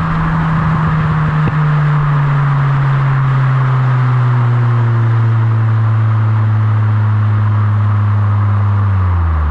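Mitsubishi Colt CZT's turbocharged four-cylinder exhaust running under way over road noise. Its note holds steady, sinks slowly in pitch, then drops sharply just before the end.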